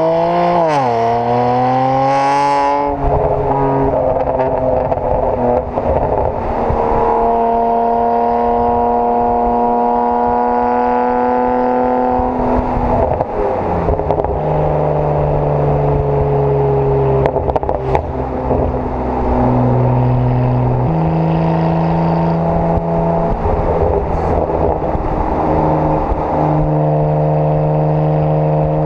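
Loud exhaust of a BMW 335i's twin-turbo straight-six, decatted and fitted with AC Schnitzer quad exhausts. It revs quickly up, down and up again in the first few seconds, then runs at fairly steady revs with slow drifts in pitch and a few sudden steps, with occasional short sharp cracks.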